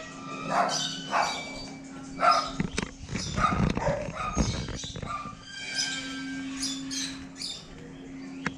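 A dog barking several times, short sharp barks mostly in the first half, over a steady low hum.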